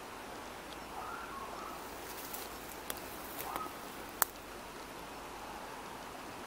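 Quiet outdoor background hiss with two faint, short animal calls, about a second in and again about three and a half seconds in. A sharp click just after four seconds is the loudest sound, with a smaller click just before three seconds.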